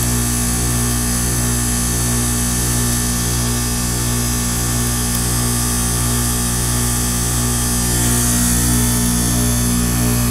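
Goodman heat pump outdoor unit running in defrost mode: a steady, loud compressor hum with a buzzing edge and hiss over it, as the outdoor coil is heated to melt off its ice.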